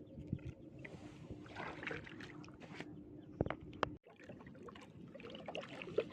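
Water splashing and trickling as a fishing gill net is pulled up and worked through the water of a flooded field, with two sharp knocks about three and a half seconds in.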